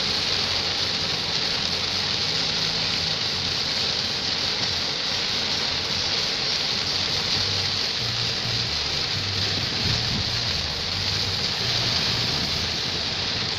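Rain falling in a steady hiss, with music playing low underneath.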